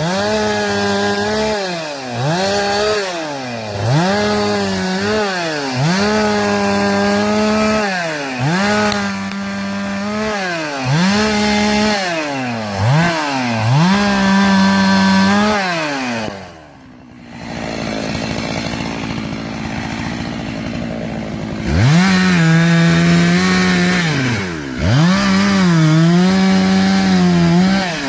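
Two-stroke chainsaw revving up to full throttle and dropping back, again and again, as it cuts pine. About two thirds of the way in it falls to a lower idle for a few seconds, then revs up again twice.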